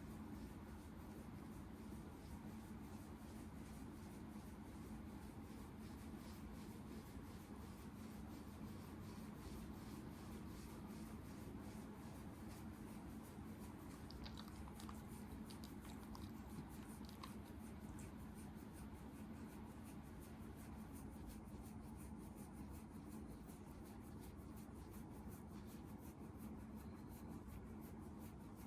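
Quiet room tone: a steady low hum under faint hiss, with a few faint high clicks about halfway through.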